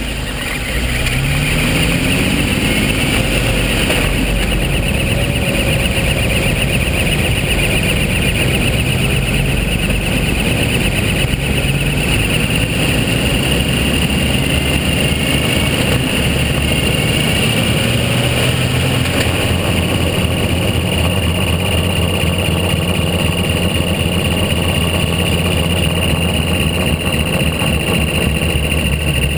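2005 Jeep Wrangler Unlimited Rubicon's 4.0-litre inline-six running as it drives, rising in pitch over the first few seconds and then holding steady, with a steady high whine above it. The owner reports a chirping noise from the drivetrain.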